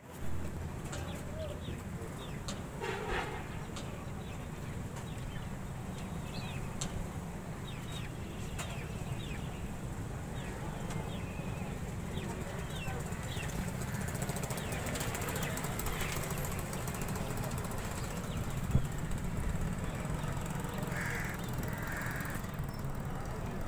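Birds chirping, with occasional cawing calls, over a steady low rumble.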